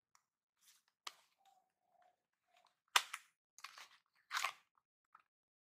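A small cardboard cosmetics box being handled and opened: faint clicks and rustles, a sharp snap about three seconds in, then two short scraping rustles.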